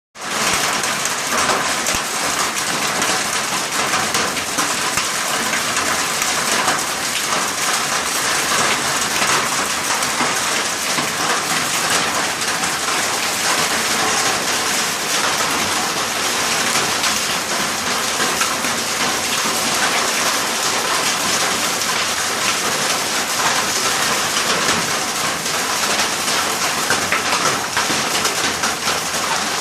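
Hailstones and rain pelting down on surfaces in a heavy hailstorm: a dense, steady clatter of countless small impacts.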